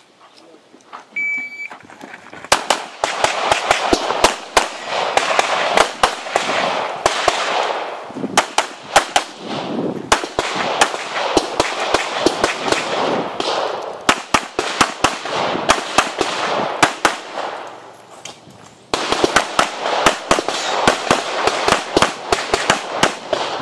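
An electronic shot timer beeps once about a second in. Then a Springfield XD(M) 5.25 9mm pistol fires fast strings of shots, with a short lull about three quarters of the way through.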